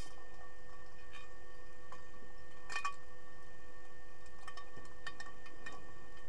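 Underwater swimming-pool sound heard through a submerged camera: a steady hum made of several held tones, with scattered clicks and knocks, the loudest a little under three seconds in.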